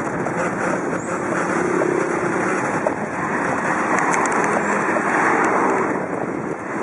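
Heavy wind noise buffeting the microphone of a bicycle-mounted camera while riding, a steady rushing roar.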